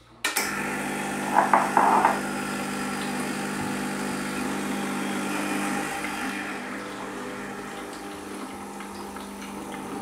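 Gaggia Classic espresso machine's vibratory pump buzzing steadily as it pushes descaler solution through the group head into a jug, starting suddenly as it is switched on. About six seconds in the sound turns a little quieter and thinner, a slight different sound that the owner takes to mean the water in the reservoir is getting low.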